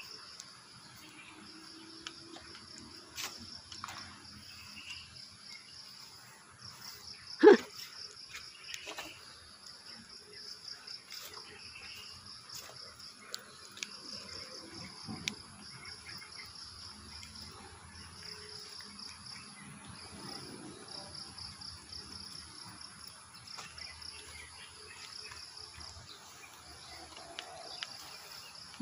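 Insects chirring in a steady, high pulsing trill, with one sharp knock about seven and a half seconds in and a few faint clicks.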